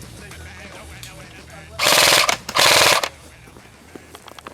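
Airsoft gun firing two rapid full-auto bursts, each about half a second long, a couple of seconds in.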